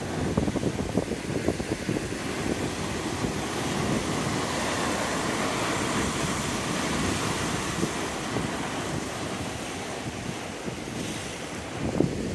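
Ocean surf breaking and washing over coastal rocks, with wind buffeting the microphone. The wash swells for a few seconds in the middle, and gusty low thumps come at the start and near the end.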